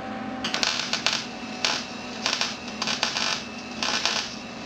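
Wire-feed (MIG) welding arc crackling and sizzling in several short bursts with brief gaps between them, starting about half a second in.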